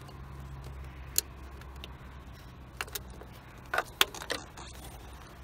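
Small metallic clicks and taps from a tool and screws on the throttle body as the throttle position sensor's mounting screws are undone. Single clicks come at first, then a quick cluster near the end, over a low steady hum.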